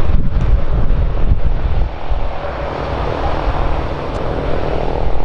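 Wind buffeting the microphone over the steady noise of an aircraft engine running, with a faint engine whine coming in about halfway through.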